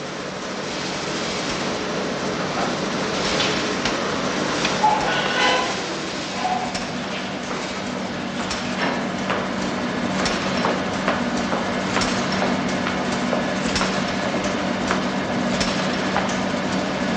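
Coffee-roasting plant machinery running: a steady hum under a continuous rattle of irregular clicks and knocks.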